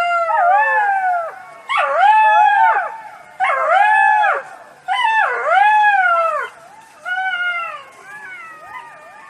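Fox giving a series of wavering, high-pitched calls, each about a second long with short gaps between. The last calls, near the end, are fainter.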